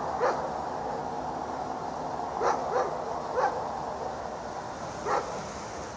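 A dog barking: five short single barks at uneven gaps, over steady background noise.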